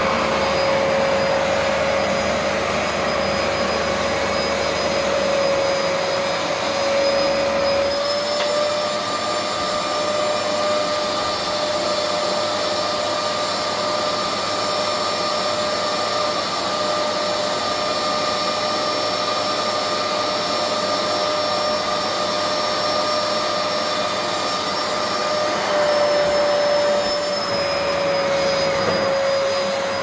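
Vax upright carpet cleaner running continuously with a steady motor whine. About eight seconds in its pitch rises slightly, and near the end it drops back.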